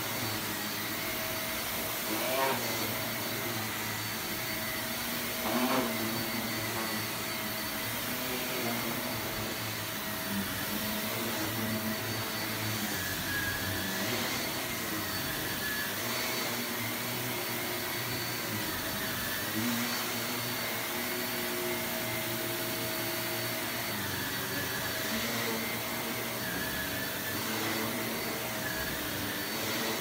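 Bagless upright vacuum cleaner running steadily as it is pushed back and forth over an area rug, its hum shifting slightly with the strokes. Two short, louder noises come in the first six seconds.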